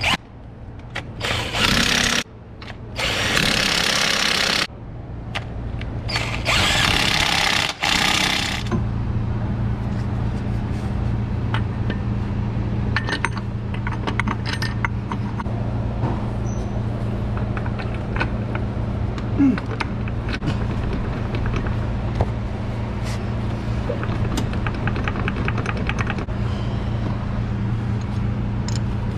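Cordless power tool run in three short bursts on engine-bay bolts over the first eight seconds. After that comes a steady low hum with faint scattered clicks.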